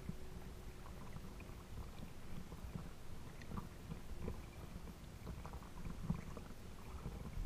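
Water lapping and sloshing against a small boat's hull right beside the microphone, with irregular soft knocks and splashes.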